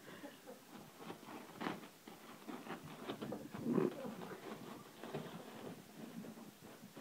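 Dog tearing and rustling wrapping paper off a present with its teeth and paws: a run of irregular crinkles and rips, busiest about four seconds in.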